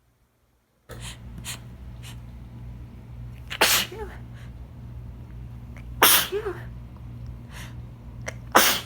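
A person sneezing three times, about two and a half seconds apart. Each sneeze is a loud, sudden burst with a short voiced cry at the end.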